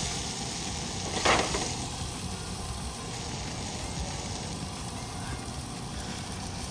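Food frying in a cast iron skillet on a propane camp stove: a steady sizzle, with a brief louder burst about a second in.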